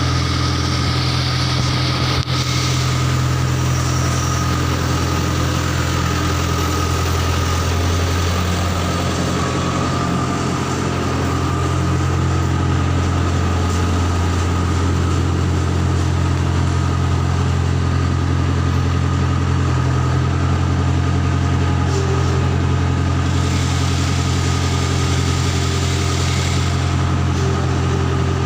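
Skid steer loader engine running steadily at a constant speed for the whole stretch, with no revving, and a single short click about two seconds in.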